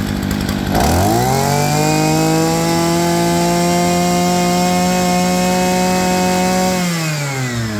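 Robin NB321 brush cutter's small two-stroke engine. It idles, then is throttled up sharply about a second in and held at high revs for about six seconds, then falls back toward idle near the end.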